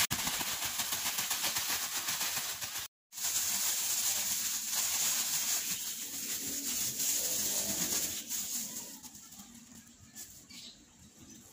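Plastic bag of cut potato strips and cornstarch being shaken hard: a fast, dense rustling and flapping of plastic, with a short gap about three seconds in. It gives way to quieter crinkling of the bag being handled in the last few seconds.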